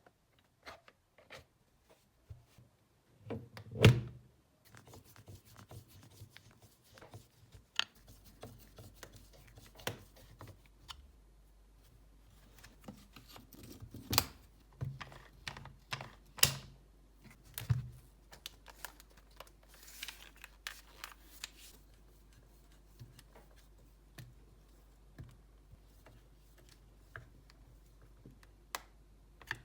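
Irregular small clicks, taps and knocks of parts and tools being handled on a workbench, with one louder thunk about four seconds in. A faint low hum comes in about eight seconds in.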